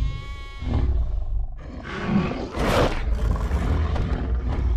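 Dinosaur roar sound effects: a high pitched screech at the start, then rough, drawn-out roars over a deep rumble.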